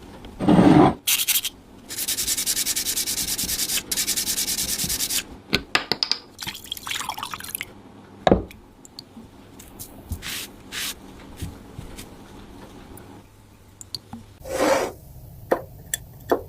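Rapid, evenly paced rubbing or sanding strokes for about three seconds, then scattered clicks and knocks of parts being handled.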